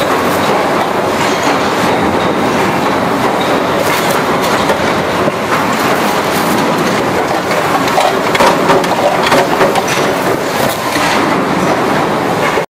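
Steady factory-floor machinery din, a dense clatter of many small knocks and rattles.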